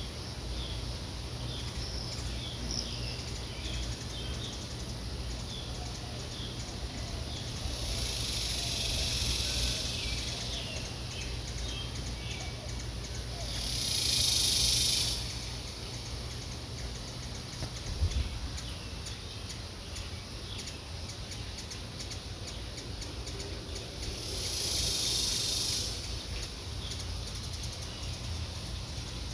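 Outdoor ambience with birds chirping in short calls during the first several seconds and three swelling high insect buzzes, each about two seconds long, the loudest in the middle. A steady low hum runs underneath, and there is a single knock about two-thirds of the way through.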